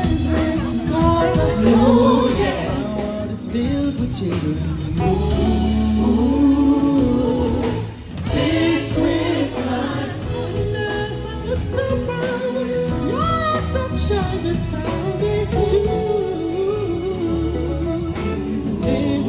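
Music with singing voices over instruments, continuous, with a brief dip about eight seconds in.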